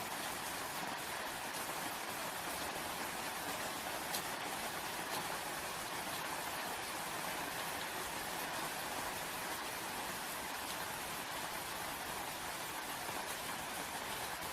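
Steady rain falling, an even hiss with faint scattered drop ticks and one slightly louder tick about four seconds in.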